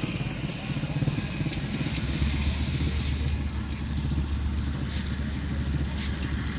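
A low, steady engine rumble that grows stronger about two seconds in and then holds.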